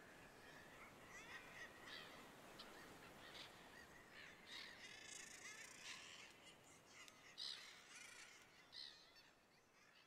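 Faint calls of many birds, short calls overlapping one another, fading away near the end.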